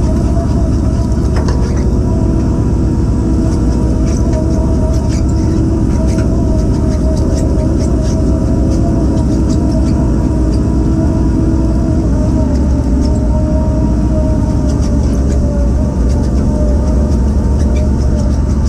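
Fishing boat's machinery running with a steady low drone and a steady whine on top while the net is hauled aboard, with scattered light clicks and knocks.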